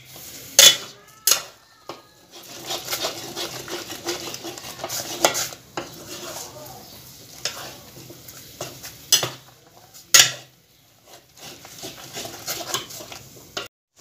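A spoon stirring and breaking up goat's blood in a metal pot, scraping and knocking against the pot's sides with several sharp clanks. The blood is setting and thickening as it cooks.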